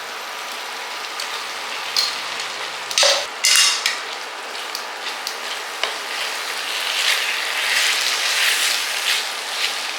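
Brinjal (eggplant) pieces sizzling in oil in a pan as ground spice powder is stirred in, with a few sharp clicks and scrapes of the spoon against the pan about two to four seconds in. The sizzle grows louder for a couple of seconds toward the end.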